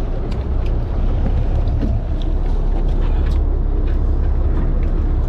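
Steady low rumble on a fishing boat's deck, with a few light clicks and knocks on top.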